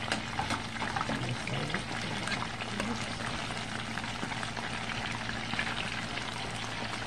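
Battered chicken pieces frying in a skillet of hot vegetable oil: a steady sizzle with many small crackles.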